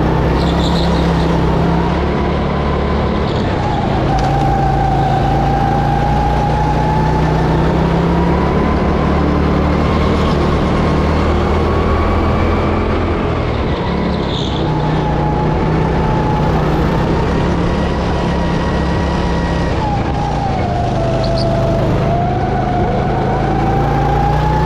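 Go-kart engine heard from the driver's seat at racing pace, its pitch climbing along the straights and dropping away a few seconds in and again near the end as the kart slows for corners.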